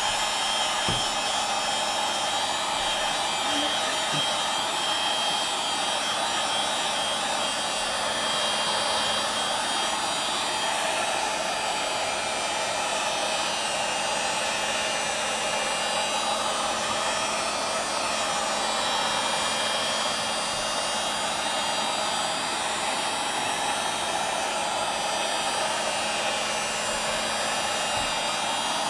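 Handheld hot-air blower running steadily with a constant rushing blow and a faint hum. It is heating the tablet's screen to soften the adhesive holding the digitizer to the frame.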